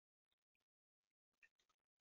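Near silence, with a few very faint clicks about a second and a half in.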